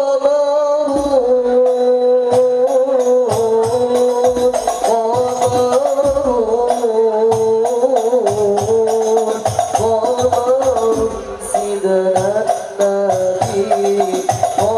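Male voices singing an Islamic devotional song together, accompanied by hand-struck frame drums beating a steady rhythm.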